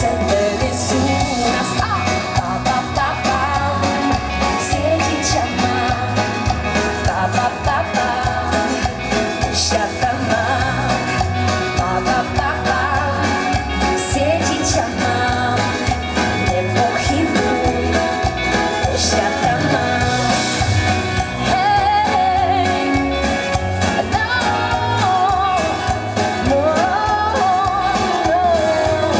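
Live pop band playing a song with a woman singing lead into a microphone.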